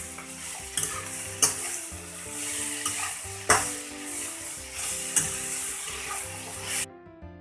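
Potatoes, pumpkin stalks and jackfruit seeds frying in oil in a kadai, sizzling steadily while being stirred. A spatula knocks and scrapes against the pan several times. The sizzle cuts off suddenly near the end.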